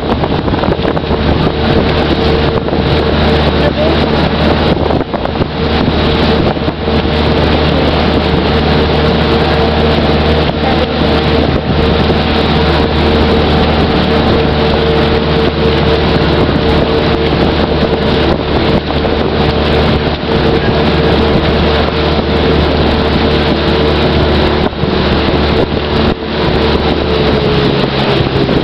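Engine of a motorised bangka outrigger boat running steadily under way, a loud, even drone with a held note, over water rush and wind buffeting the microphone. The engine's pitch sags slightly near the end.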